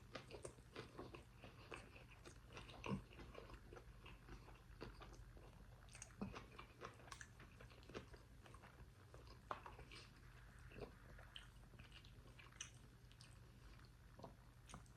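A person chewing and biting into a Dave's Hot Chicken slider, a fried chicken sandwich with pickles and coleslaw: scattered short clicks throughout, the loudest about three seconds in, over a faint low hum.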